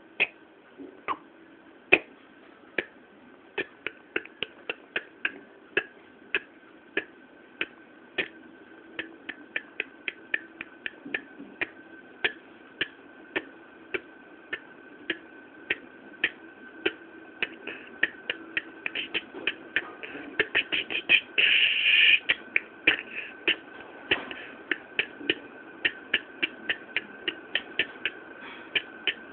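A run of sharp ticks, sparse and uneven at first, then coming faster and closer together. A quick flurry sounds a little past the middle, and fast, even ticking of about four a second follows near the end, over a faint steady hum.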